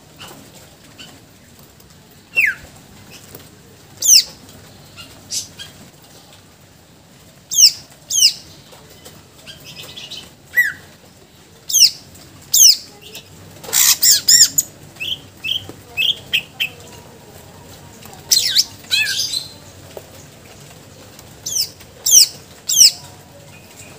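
Caged green leafbird (cucak ijo) singing in full voice, with loud, sharp, steeply falling whistled notes given singly or in quick clusters and a rapid run of notes around the middle. The song is laced with mimicked phrases of other birds. A few wing flutters sound as the bird hops about the cage.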